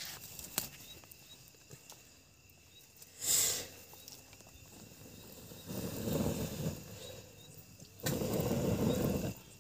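Wood cooking fire under a steel pot, with a few sharp crackles near the start and a short high hiss about three seconds in. Two bursts of rushing noise, each about a second long, come in the second half and are the loudest sounds.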